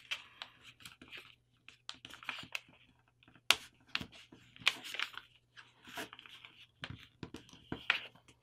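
A sheet of paper being folded and creased by hand and shifted on a cutting mat, giving irregular rustles and sharp crackles.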